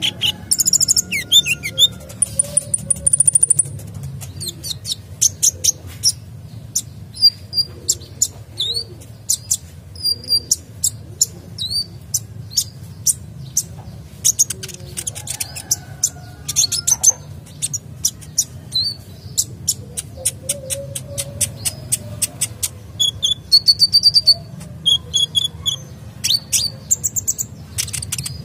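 Male sunbird singing nonstop: rapid high chirps, trills and short whistled notes following one another in quick succession.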